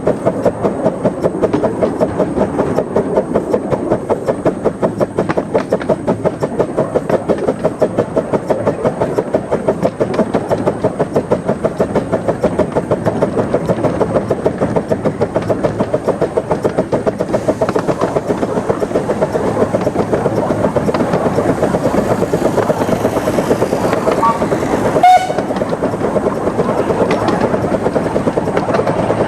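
Krupp 4-6-2 Pacific 15-inch gauge miniature steam locomotive working along, its exhaust beating rapidly and evenly. A short, loud whistle note sounds near the end.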